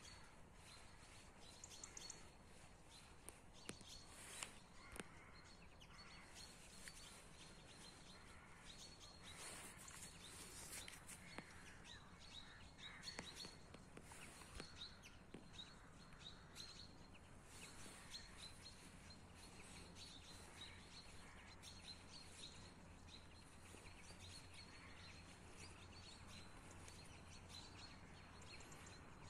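Near silence: faint outdoor ambience with a steady hiss and scattered faint bird chirps.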